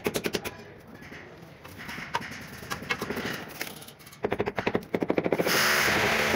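Quick runs of sharp taps on a ceramic wall tile as it is bedded into its adhesive with the hand and a wooden-handled mallet, twice: at the start and again past the middle. A louder, harsh, noisy sound lasting more than a second follows near the end.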